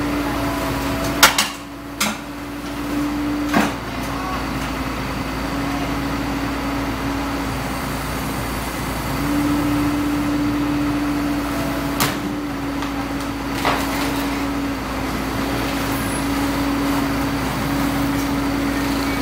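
Komatsu PC130 tracked excavator running with a steady engine hum as it crawls up onto a flatbed truck. Sharp metal clanks and knocks from the machine shifting onto the steel deck come a few times, the loudest about a second in, with more at about two and three and a half seconds and twice more near the middle.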